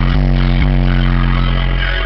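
Three 15-inch NVX VCW-152 subwoofers playing bass-heavy music at high volume, heard inside the car: a deep sustained bass note with sharp beat hits about twice a second.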